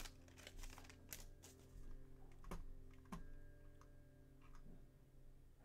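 Faint, scattered clicks and snaps of trading cards being handled and flicked by hand, over quiet background music.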